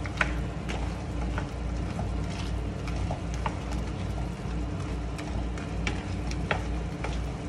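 Wooden spatula stirring whole shell-on prawns in sauce in a nonstick pan: irregular clicks and scrapes as the spatula and shells knock against the pan, over a steady low hum.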